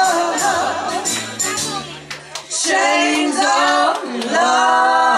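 Female vocal group singing doo-wop over a backing track with a bass line and percussion. About halfway through the backing drops away and the voices carry on singing alone.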